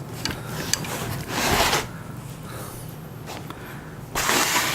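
Packaging being handled as the printer parts are unpacked: rubbing and rustling of wrapping and foam, with a few light knocks and two louder rustling swells, one about a second and a half in and one near the end.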